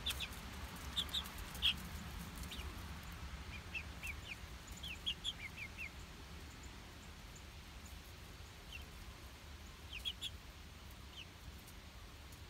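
Young chickens giving short, high, falling chirps, a few at a time in scattered clusters.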